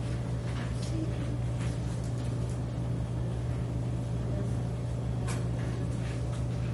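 Steady low hum of room equipment, with a few faint, short scratchy strokes of a marker writing on paper.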